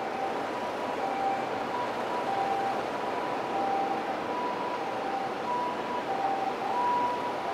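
Outdoor city ambience: a steady wash of traffic and construction-site noise, with faint short beeps at two pitches sounding off and on.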